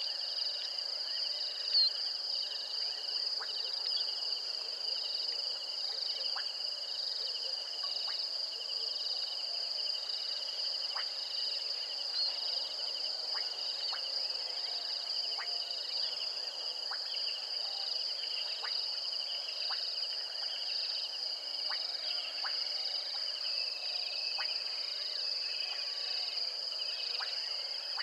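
Steady night-time insect chorus: two layers of high, fast-pulsing chirring carry on unbroken. Scattered short clicks sound every second or two.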